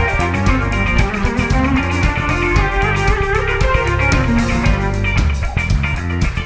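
Live rock band playing an instrumental groove: drums, bass guitar, electric guitar and keyboard together at a steady tempo.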